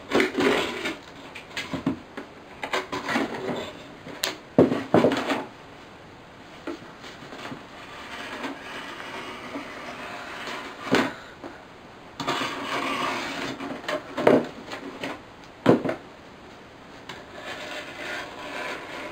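Scalpel blade cutting through a cardboard box, an uneven series of scraping, rasping strokes, with a few sharp knocks in between.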